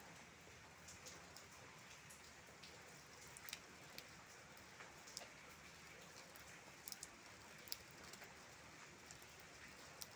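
Light rain falling on leaves: a faint steady hiss with single drops landing as irregular sharp ticks, roughly one a second.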